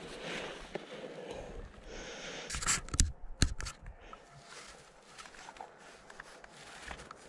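Climbing contact noise close to the microphone: hands, clothing and gear rubbing and scraping on the rock, with a cluster of sharp clicks and knocks about three seconds in, then fainter scattered clicks.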